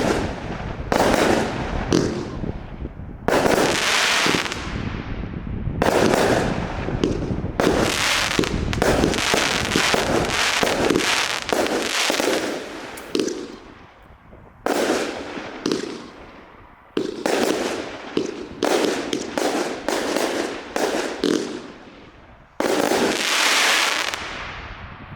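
Magic Realm multi-shot firework going off: a run of sharp bursts, some in quick clusters, each trailing off over a second or so. There are short lulls around the middle and a last burst near the end.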